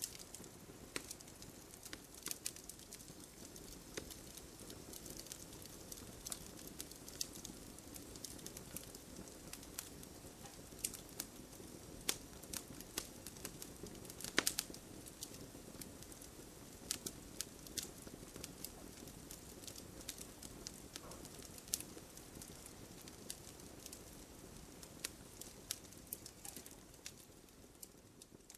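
Wood campfire crackling: a steady low hiss of the flames with frequent sharp irregular pops and snaps, the loudest about halfway through.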